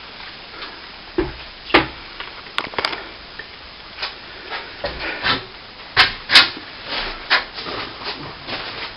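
A wet brush dabbing and scrubbing at cracked lath-and-plaster, a run of irregular taps, knocks and rubbing scrapes as the cracks are wetted down. The sharpest knocks come about two seconds in and again around six seconds in.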